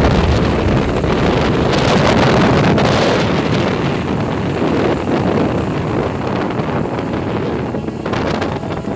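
Wind rushing and buffeting against the microphone of a camera carried along in a moving vehicle, a loud steady rush with a low rumble underneath.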